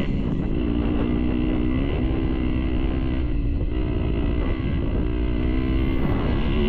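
Dirt bike engine under way on a trail, its note rising and falling with the throttle and gear changes.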